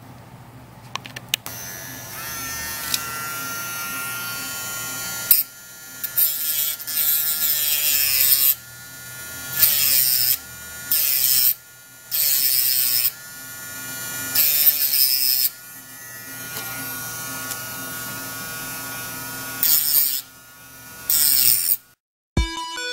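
Handheld mini electric rotary grinder running with a steady whine, breaking into harsh grinding in repeated short bursts as its bit is pressed against a phone logic board.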